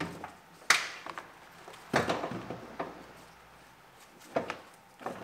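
Several sharp clicks and knocks with rustling in between, the loudest under a second in, as a seatbelt is worked through its slot in a car's rear package shelf.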